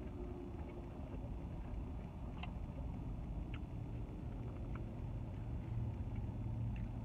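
Steady low rumble of vehicle traffic heard through open car windows, with an engine hum growing stronger in the last couple of seconds. A few faint clicks from a fork and plastic takeout container.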